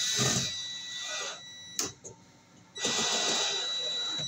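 Ryobi cordless drill running in two bursts with a steady high whine, driving screws into a wooden board to mount a dryer receptacle. A sharp click falls between the bursts.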